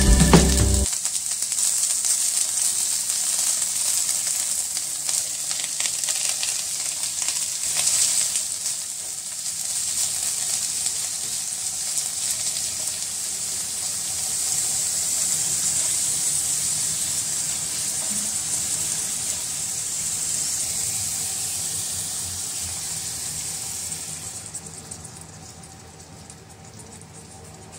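Yellow chive strips sizzling in hot oil in a nonstick frying pan. Near the end the sizzle dies down as beaten egg is poured over them.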